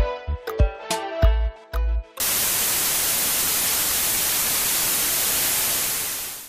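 Music with a heavy kick drum cuts off abruptly about two seconds in, replaced by a loud, even hiss of TV static that fades out at the very end.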